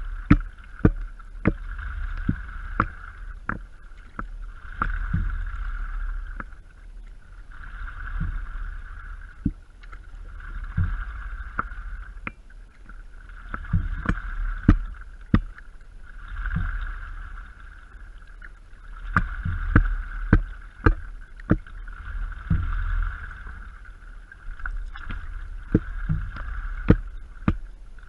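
Stand-up paddleboard paddling on calm water: the paddle's strokes swishing through the water in swells every couple of seconds, with many sharp clicks and knocks of water and paddle against the board, over a low steady rumble.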